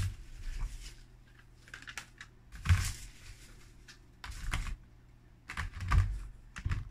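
Cardboard box and clear plastic packaging being handled: a scattered series of short knocks, taps and rustles, the loudest about three seconds in and again near six seconds.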